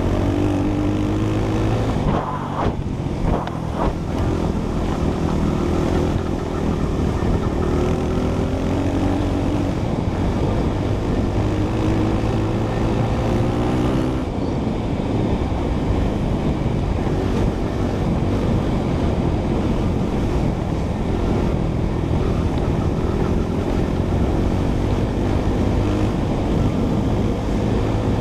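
Small four-stroke single-cylinder dirt bike engine, a Honda CRF100F, running under throttle as the bike rides a gravel trail. The engine note rises and falls, easing off briefly about two to four seconds in and changing again around fourteen seconds in.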